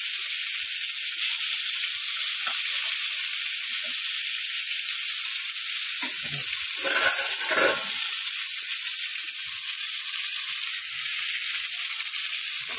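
Masala-coated Indian mackerel shallow-frying in oil in a pan, with a steady sizzle. About halfway through, a metal spatula scrapes and shifts the fish for a couple of seconds.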